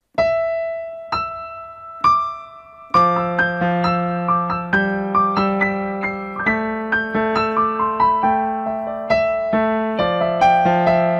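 Piano music: three single notes about a second apart, then from about three seconds in a flowing melody over a bass line.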